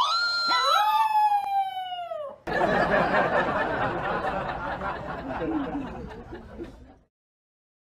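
Chihuahua howling: long drawn-out howls that rise and then slowly fall in pitch, two voices overlapping for about the first two and a half seconds. Then a dense, noisy hiss for about four seconds that cuts off abruptly.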